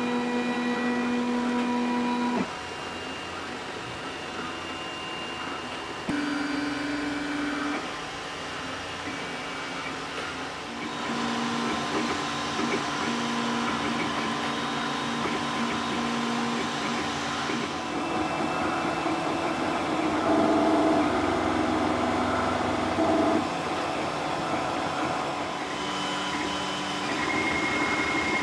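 Flashforge Creator Pro 3D printer running a print: its stepper motors whine in steady tones that change pitch and stop and start every few seconds as the print head moves, over the constant whir of its cooling fans.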